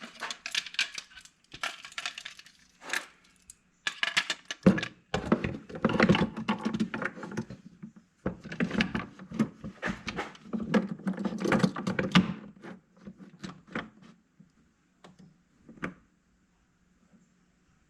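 Handling of a Kreg drawer slide jig, its clamp and the drawer slides: bunches of clicking and rattling for most of the time, thinning to a few single clicks near the end.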